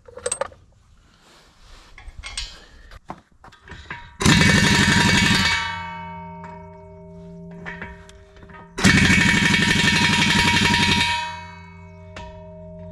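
Impact wrench hammering lug nuts tight on a Caterpillar 14G motor grader's steel wheel in two rattling bursts, about a second and two seconds long, the wheel ringing on with a steady metallic hum after each. Light metal clinks of the nuts being handled come before.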